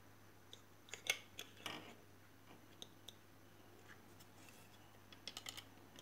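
Faint small clicks and taps of a knife tip and fingers against the plastic hub and spring housing of a pull-cord hand chopper, as a tooth is worked into the recoil spring. There are a few around a second in and a cluster near the end.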